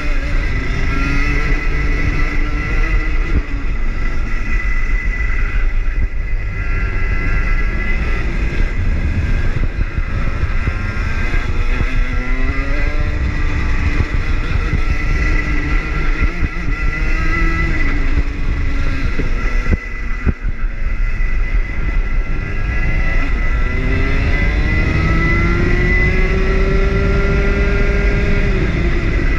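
Rotax two-stroke kart engine at racing speed, its pitch rising on the straights and dropping into the corners several times, with one long climb near the end. A heavy low rumble lies beneath.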